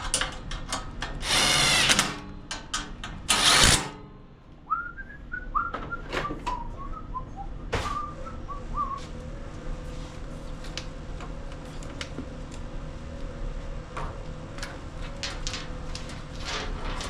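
Cordless drill or driver run in two short bursts, about a second and three seconds in, driving in the bolts of a riding mower's muffler guard. It is followed by a few soft whistled notes and light clicks of tools and metal parts.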